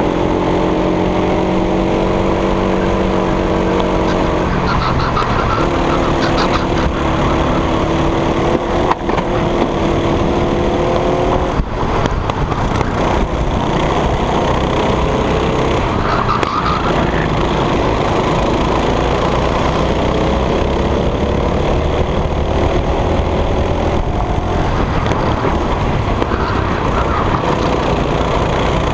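Go-kart engine running flat out on track, its pitch climbing steadily and then dropping back several times as the kart accelerates and slows. A dense steady rushing noise lies under it, and a few sharp knocks come near the middle.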